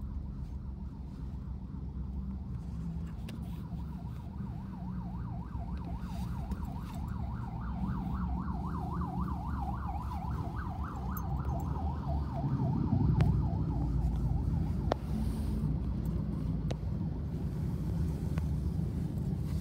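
Erawan rescue ambulance's 'Scorpion' siren: a fast up-and-down wavering wail, heard through a closed car window over the car's low engine and road rumble. The siren fades out a little past halfway, and a louder rumble swells soon after.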